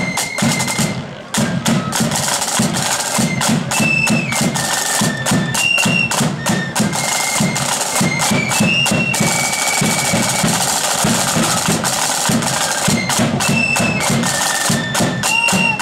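Blood-and-thunder marching flute band playing: a high flute melody over rattling side drums and a steady bass drum beat.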